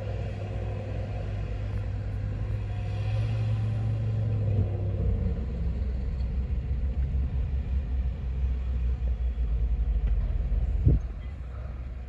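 Heavy diesel machinery running: a steady low engine drone gives way about halfway to a lower, uneven rumble. One sharp thump comes near the end.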